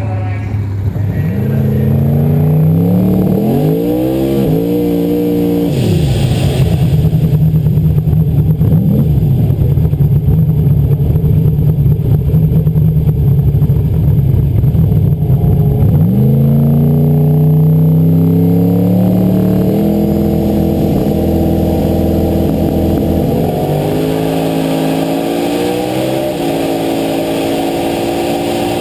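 Turbocharged 435ci Windsor V8 in a Ford XW Fairmont drag car revving up, then held at a steady high rev with a fast crackle for about ten seconds. It falls back and climbs again in several steps.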